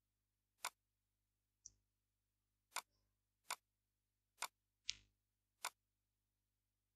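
Computer mouse clicking: about seven short, sharp clicks, roughly a second apart.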